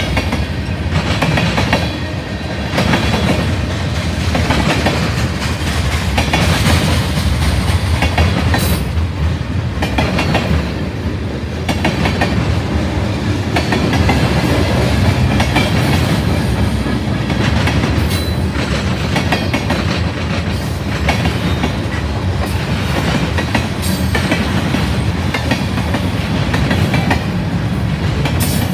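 Freight train's tank cars and covered hoppers rolling past: a steady rumble of steel wheels on rail with repeated clickety-clack.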